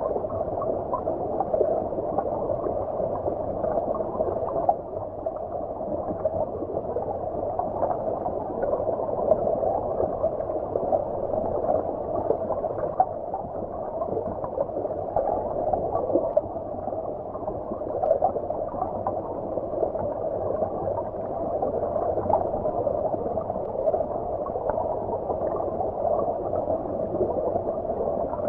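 Flowing stream water heard from underwater: a steady, muffled bubbling and gurgling with no high sounds, flecked with small crackles.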